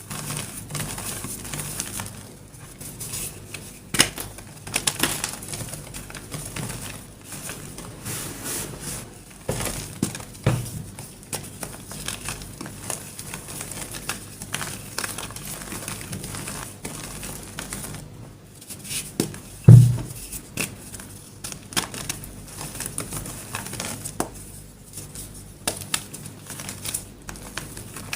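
Dyed gym chalk shaped as a red-painted heart being crushed, crunching and crackling in irregular bursts of small cracks, with one heavier thump about two-thirds of the way through.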